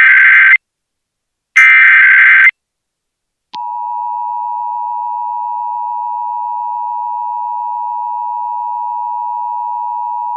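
Emergency Alert System SAME header: the last two of its three short, harsh digital data bursts, then about a second of silence and the EAS two-tone attention signal (853 and 960 Hz together) starting, held steady. It marks the opening of a Required Monthly Test message.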